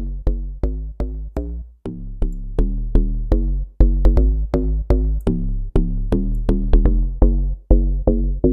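Synthesized FM-type deep house bass from Serum playing short plucky notes, several a second, with a deep sub underneath, over a kick and drum loop. The FX filter's resonance and drive are being turned up, shifting the bass's tone.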